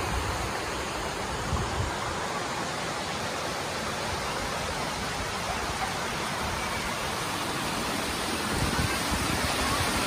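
Steady rush of a fast stream tumbling over rocks, an even hiss of water with a low rumble joining in near the end.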